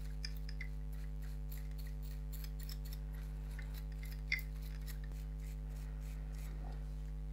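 Faint light scratching and ticking of a small tool cleaning a camcorder lens's aperture (iris) mechanism, with one sharper click about four seconds in, over a steady low hum.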